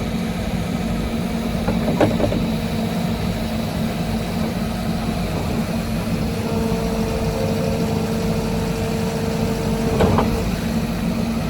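Case 580 Super N backhoe's diesel engine idling steadily, with two brief knocks, one about two seconds in and one near the end, and a faint steady whine in between.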